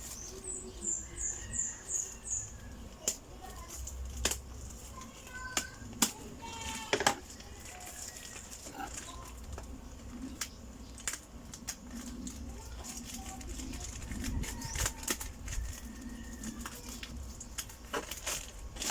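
Plastic packaging and fabric being handled and unfolded: irregular rustling and flapping, with scattered sharp clicks and taps. A quick run of high chirps comes near the start.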